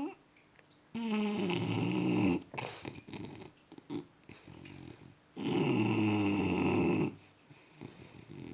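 Snoring: two long, loud snores, each about a second and a half, about four seconds apart, with softer breathing noises between them.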